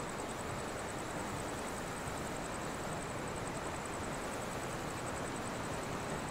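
Steady outdoor background hiss at night, with a fast, evenly pulsing high-pitched trill throughout.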